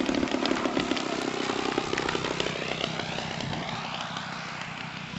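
Engine and propeller of a radio-controlled model airplane in flight, a steady drone that slowly fades as the plane draws away.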